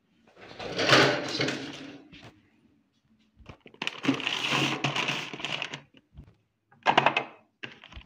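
Food packaging rustling and crinkling in two long stretches, with quick light clatters near the end, as items are handled and set into a refrigerator.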